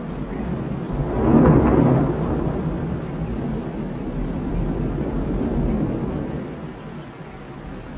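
Thunder rumbling, swelling loudest about a second and a half in and then slowly dying away, over the steady hiss of rain.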